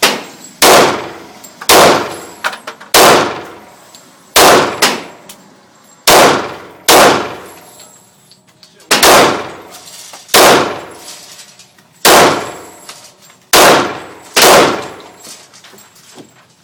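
Glock 22 .40 S&W pistol fired shot by shot: about eleven loud shots at an uneven pace of roughly one every one to two seconds, each followed by a short ringing tail.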